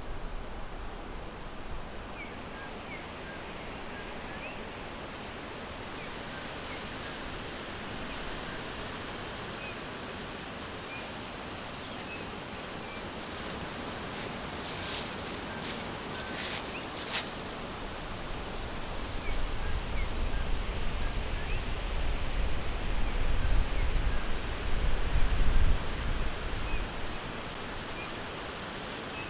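Forest ambience: a steady hiss with faint, short bird chirps scattered throughout, and a few brief rustles around the middle. A low rumble swells over the second half and is the loudest part.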